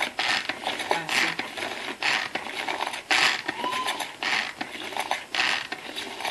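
Tupperware Extra Chef pull-cord mixer worked about once a second: each pull gives a short whirr of the cord and gears as the mixing paddle beats cake batter inside the bowl.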